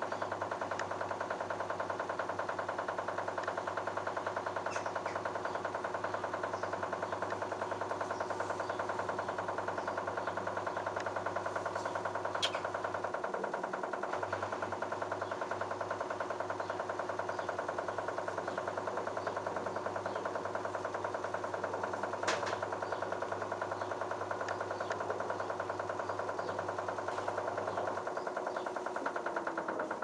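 LG F1222TD direct-drive washing machine running steadily, with a motor whine over a low pump hum. The hum cuts out briefly near the middle and stops near the end, and the whine then falls in pitch as the drum slows.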